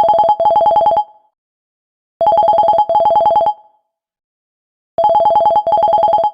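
Vivo phone call ringtone: an electronic telephone-style trill, rung as a double ring of two short rapid-pulsing bursts. The double ring repeats about every two and a half seconds, three times.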